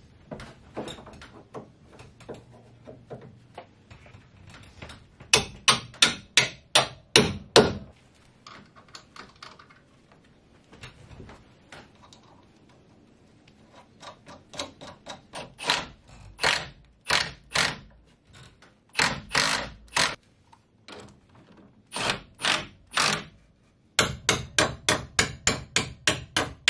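Hammer blows driving bolts into the wooden frames of a boat hull, in runs of quick strikes about three a second with pauses between the runs; the strikes come faster near the end.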